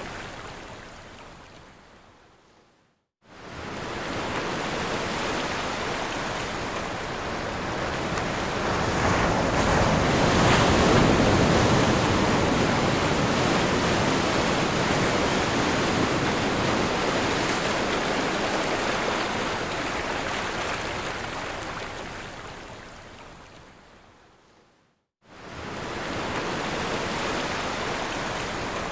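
Ocean waves breaking on a shore: a steady rushing surf that swells to its loudest about a third of the way through, then slowly ebbs. Twice the surf fades away to silence and then comes straight back in, about three seconds in and again near the end.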